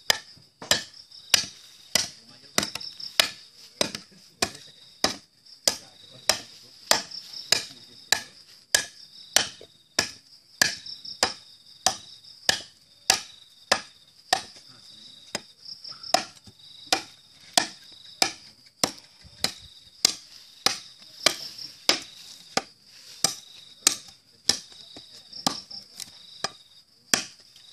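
A large 15-inch SUP9 spring-steel knife chopping into a wooden post, a steady run of sharp chops a little under two a second, as a test of the blade. Crickets chirr steadily behind.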